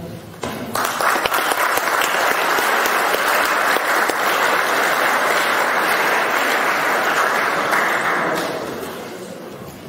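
Audience applauding, starting about half a second in and dying away over the last second or so.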